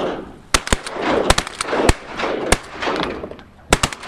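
A volley of shotgun fire from several duck hunters: about eight shots in four seconds, some in quick pairs, each followed by a rolling echo.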